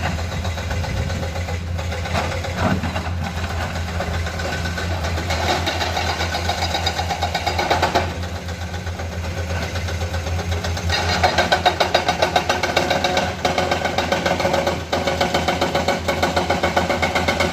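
Komatsu hydraulic excavator's diesel engine running steadily, growing louder with a fast throb from about eleven seconds in.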